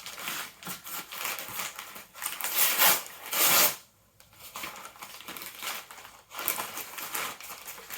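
Packaging rustling and crinkling as jigsaw puzzle boxes are handled and taken out, in irregular bursts that are loudest about three to four seconds in.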